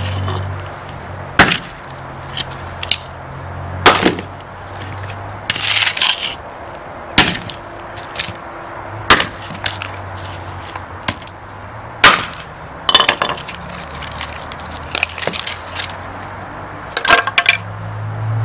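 Brittle plastic casing of a sealed lead-acid battery cracking and snapping as it is broken apart by hand, with crunching of loose debris. A series of sharp cracks comes a second or two apart.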